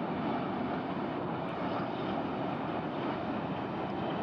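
Jet airliner's engines, heard as a steady, even rush of noise that holds at one level.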